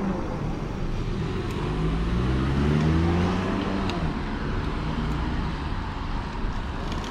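Traffic noise while riding on a road: a motor vehicle passes, its engine pitch rising and then falling between about two and four seconds in, over steady road and wind noise.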